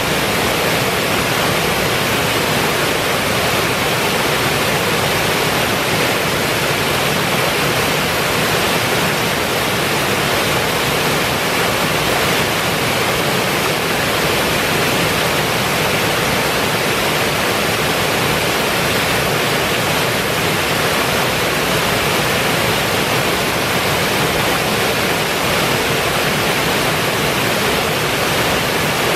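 River water rushing over a low stone weir in a steady, loud wash of white water.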